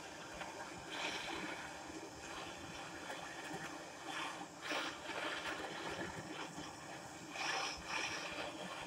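Gas torch flame hissing steadily as it heats a 50cc moped exhaust to burn out the carbon deposits, swelling louder a few times.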